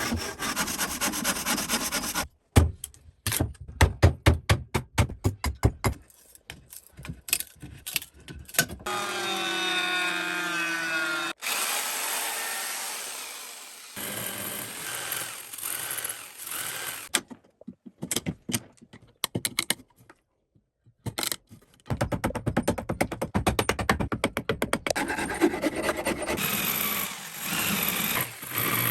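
Workshop tool sounds while making an axe, in quick succession: fast rhythmic strokes of sawing or filing, a run of separate knocks and clicks, a wavering pitched whine for a couple of seconds followed by a steady grinding noise, then a brief pause and more fast rasping strokes to the end.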